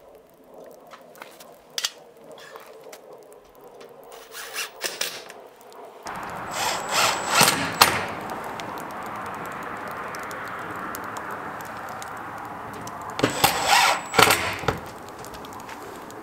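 Milwaukee cordless drill driver running in two short loud bursts, driving screws through a ribbed metal siding panel. Before the drilling there are scattered light knocks and clicks from handling the panel.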